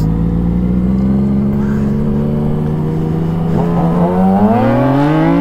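Yamaha MT-09's three-cylinder engine, heard from the rider's seat, running at a steady cruise and then revving up with a rising pitch from about three and a half seconds in as the bike accelerates.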